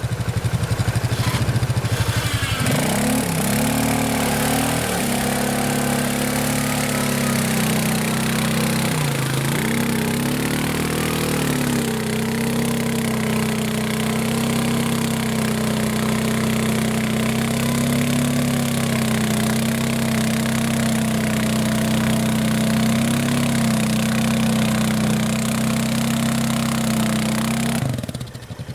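Off-road 4x4's engine working under load: its pitch rises about two seconds in, sags and climbs back twice, then holds at steady high revs, with small wobbles, until it falls away near the end.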